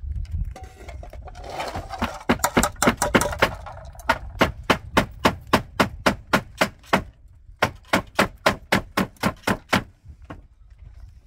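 A metal spoon or ladle knocking rhythmically against a metal pot while beating a mixture, about four sharp clicks a second, in two long runs with a short pause between them.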